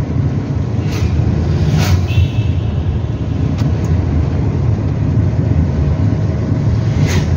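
Steady low rumble of a car's engine and tyres on the road, heard from inside the cabin while driving, with a few brief clicks: about a second in, near two seconds, and near the end.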